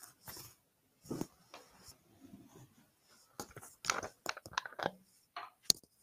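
Irregular close-up rustling and crackling with sharp clicks, busiest around the middle, like a microphone or headset being handled.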